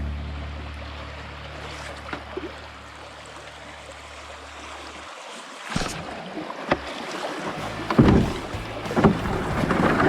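Canoe paddle strokes in creek water, splashing in surges, several of them in the second half. Low steady background music fades out about halfway through.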